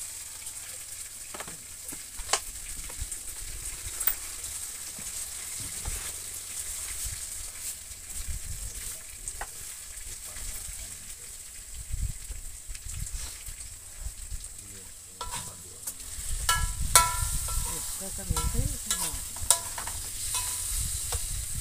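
Anchovy sambal sizzling in oil in a wok on a gas stove, with occasional clinks of a metal ladle against the wok that turn into a busier run of stirring knocks and scrapes a few seconds before the end.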